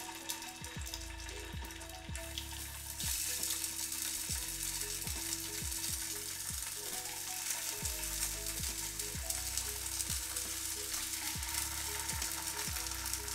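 Cornmeal cakes sizzling in hot oil in a cast-iron pan, the sizzle growing louder about three seconds in as more cakes go into the pan. Soft background music with a repeating low plucked line runs underneath.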